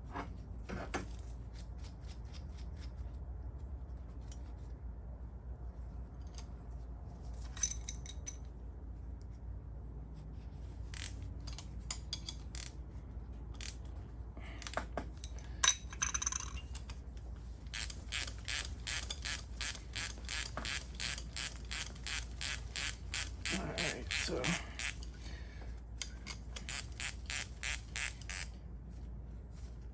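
Ratchet wrench turning an exhaust manifold stud out, double-nutted: a long run of evenly repeated ratcheting strokes, about two to three a second, then a shorter run near the end. Before it come scattered clicks and knocks of metal tools being handled.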